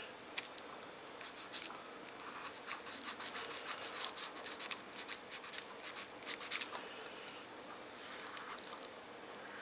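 Felt-tip marker scratching across paper in quick short strokes, thickest in the middle, then a smoother drawn-out stroke near the end.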